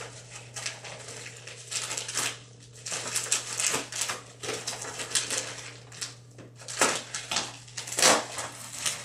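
Plastic poly mailer bag crinkling and rustling in irregular bursts as it is cut and torn open with a knife, with a steady low hum underneath.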